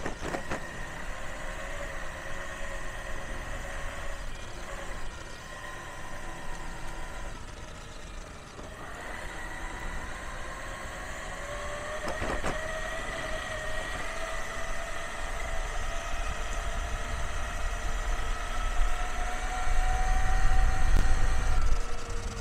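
Whine from the steel helical reduction gears (7:1) of a Trampa-geared electric mountainboard, rising slowly in pitch as the board gathers speed. A low rumble grows louder near the end.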